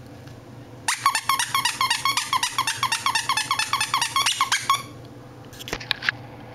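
Lhasa-poo puppy yapping at a toy held in front of her: a fast run of about twenty high-pitched yips, about five a second, which stops after about four seconds. A few short clicks follow near the end.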